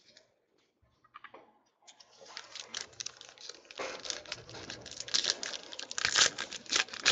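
Foil wrapper of a trading-card pack being torn open and crinkled by hand: a dense crackle that starts about two seconds in and grows louder toward the end, after a few faint clicks.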